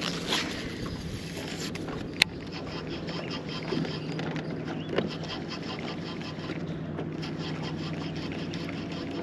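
Boat's electric trolling motor running with a steady hum, with a sharp click about two seconds in.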